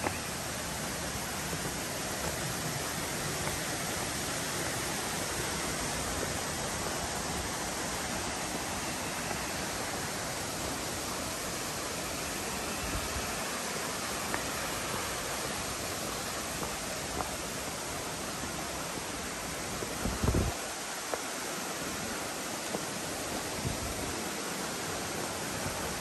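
Steady rushing of a forest stream running over rocks beside the trail. A brief low thump about three-quarters of the way through.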